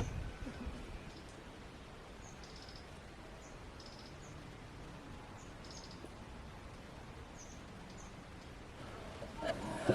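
Quiet background with faint, short bird chirps scattered throughout; a louder sound rises near the end.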